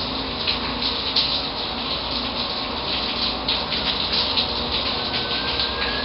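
Steady hissing noise, with soft irregular rubbing and rustling of fingers and crochet thread close to the microphone.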